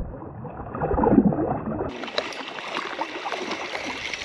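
River water splashing and gurgling as a trout is let go by hand beside an inflatable raft, sounding muffled. After an abrupt change about two seconds in, there is a steady wash of river water with scattered light clicks of a spinning reel being wound.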